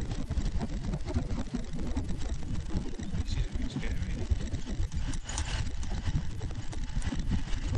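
Open safari vehicle driving along a bumpy dirt track: steady road and engine rumble with frequent small knocks and rattles from the vehicle jolting.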